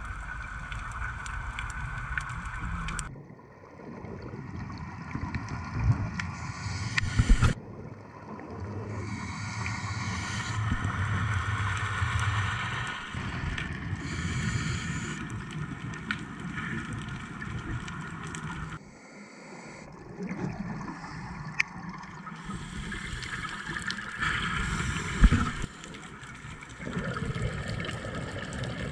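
Underwater scuba breathing: a diver's regulator hisses on each inhalation, alternating with gurgling, rumbling rushes of exhaled bubbles, in slow cycles every few seconds.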